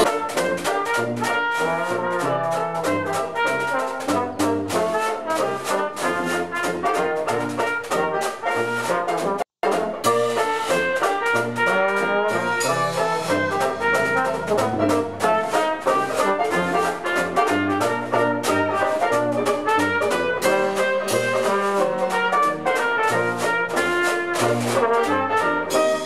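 Dixieland jazz band playing: trombone and trumpet lines over a sousaphone bass and a steady beat from drums and banjo. The music cuts out for an instant about nine and a half seconds in.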